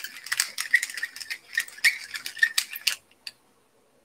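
Pepper being shaken out of its container over the pan: a quick, irregular dry rattling that stops about three seconds in.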